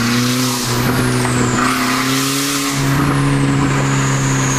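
Volkswagen Mk4 GTI's 1.8 L turbocharged four-cylinder engine droning steadily while driving, heard from inside the cabin, its exhaust loud and truck-like from a broken flex pipe. A high hiss rises and falls twice over it.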